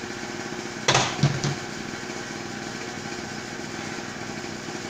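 A small engine or motor running steadily, with a short, louder burst about a second in.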